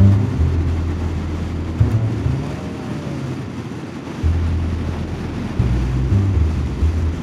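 Motorcycle running at road speed with steady wind rush, under low bass notes that step up and down like music.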